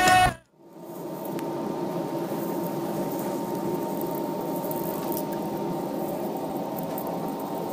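Music cuts off right at the start. After a brief gap, a steady hum rises and holds inside an air-conditioned sleeper train coach: the running noise of the carriage and its air conditioning.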